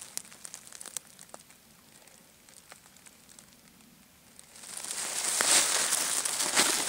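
Faint scattered clicks and crackles, then from about four and a half seconds in a loud, dense rustling of stiff, spiny oak leaves and twigs brushing close by the microphone.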